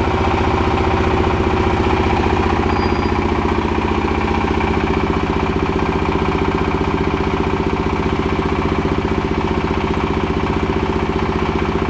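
Engine of a 30 kVA generator set running steadily at a constant speed, with an even, fast firing beat and no change in pitch.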